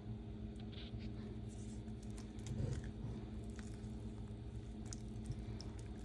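Wire whisk stirring thick cake batter in a glass bowl: soft wet squelching with small ticks of the wires against the glass, a little louder about two and a half seconds in. The batter is being loosened with added oil and melted butter. A steady low hum runs underneath.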